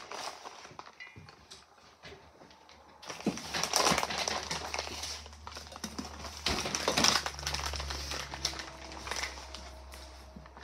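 Rummaging in an open refrigerator: containers and jars clinking and knocking against the shelves, with rustling, in irregular bursts loudest a few seconds in and again about seven seconds in.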